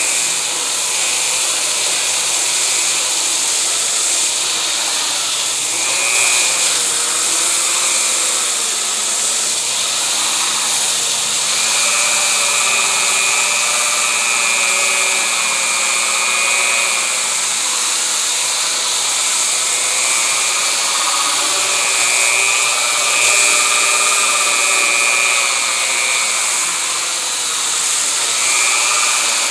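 Corded drill spinning a MaxShine hard-bristle carpet brush, scrubbing a wet, degreaser-soaked grooved rubber swim platform. The sound is steady: a hiss of bristles on the surface under a motor whine that wavers in pitch.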